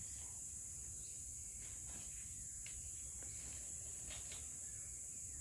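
Steady, high-pitched insect chorus droning in lush vegetation, with faint outdoor ambience beneath.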